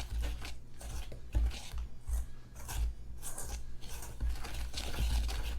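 Dry baking ingredients, flour, brown sugar and baking soda, being stirred together in a mixing bowl: repeated irregular scraping and gritty rustling strokes.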